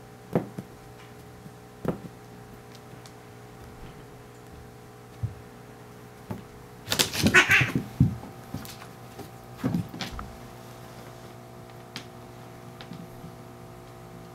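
Two Munchkin cats fighting on a wooden floor: scattered thumps and knocks of paws and bodies, then a loud scuffle of about a second midway as they tumble, with a brief cat vocalisation. A few more knocks follow.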